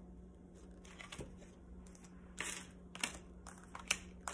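Tarot cards being shuffled and handled: quiet at first, then a few short papery riffles and flicks in the second half.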